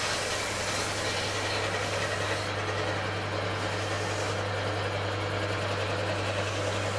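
Electric scroll saw running with a steady low hum while cutting small pieces of bamboo.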